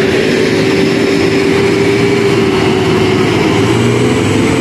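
Hino dump truck's diesel engine running steadily under heavy load as the truck pulls through deep mud, with a constant engine tone and a low rumble.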